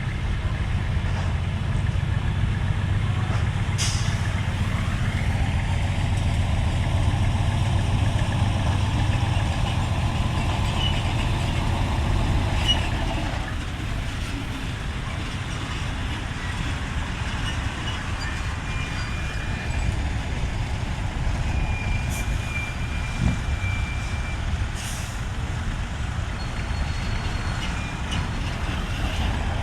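Heavy truck's diesel engine running steadily, louder for the first dozen seconds and then settling lower. There are short sharp hisses of air, like air-brake releases, about four seconds in and again near the end.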